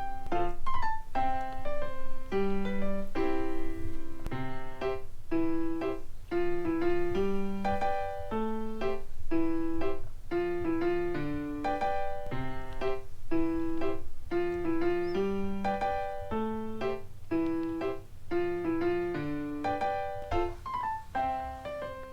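Background piano music: a simple tune of short, evenly paced notes.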